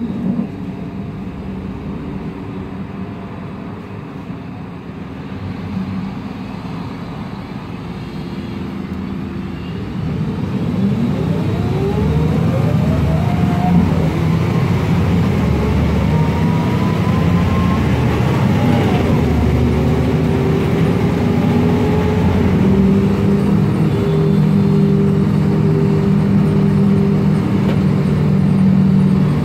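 MAN Lion's Classic CNG city bus heard from inside the passenger cabin: its MAN E2876 gas engine and ZF Ecomat six-speed automatic gearbox running. About ten seconds in the bus speeds up, and a whine rises in pitch more than once as it works up through the gears. It then runs on steadily and louder.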